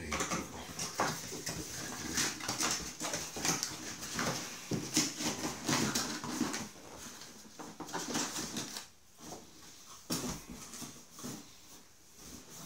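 Cardboard packaging being handled: inserts and box flaps scraping, rustling and knocking irregularly as they are pulled out and the box is moved.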